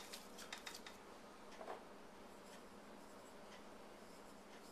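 Faint rubbing and handling of raw pork pieces in a mixing bowl as hands work salt into the meat, with a few light ticks mostly in the first second.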